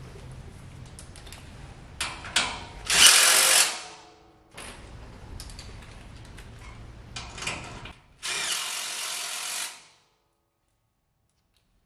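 Cordless drill driving bolts to fasten a steel leg to a galvanized steel frame. It runs in two bursts of about a second each, with clicks and knocks of metal parts being handled between them.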